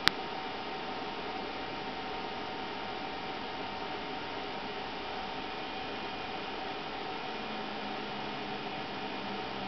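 BenQ W500 projector's cooling fan running steadily: an even rushing hiss with a faint steady tone in it. A single sharp click sounds right at the start, and a faint low hum comes in near the end.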